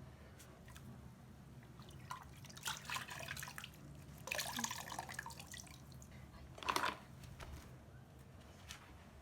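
Water splashing and dripping in three short spells; the last is brief and the loudest.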